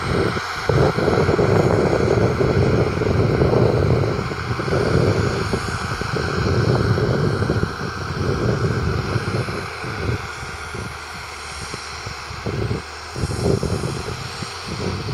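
Valtra T151's 6.6-litre six-cylinder diesel engine running steadily. It gets somewhat quieter about two-thirds of the way through.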